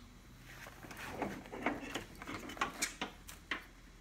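Light rustling and a scattered series of small clicks and ticks as wiring and plastic parts are handled inside the headlight opening.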